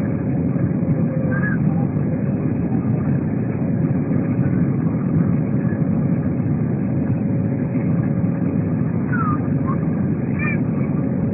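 Steady roar of an Airbus A320's engines and airflow heard inside the cabin, with a faint steady hum running through it.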